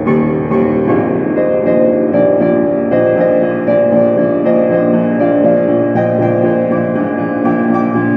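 Slow ambient keyboard music in a piano-like tone: long, overlapping held notes and chords that change about once a second.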